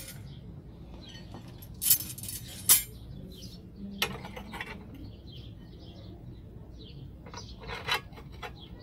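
Steel wire rod being handled and laid into a homemade rebar stirrup bender, clinking against its steel angles: a few sharp metal clinks, the loudest about three seconds in, with more near the end. Birds chirp faintly between the clinks.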